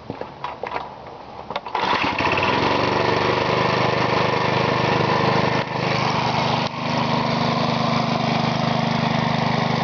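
Briggs & Stratton single-cylinder lawnmower engine, built up as an experimental air compressor with retarded, reground cam lobes, being started. A few clicks, then it catches about two seconds in and runs steadily, with two brief dips in level a few seconds later.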